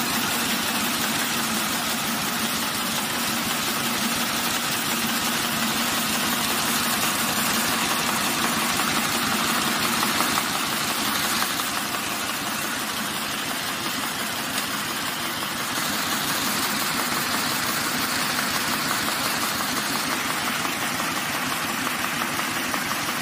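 Red envelope making machine running steadily: a dense, even mechanical noise of its rollers and paper feed, dipping slightly for a few seconds midway.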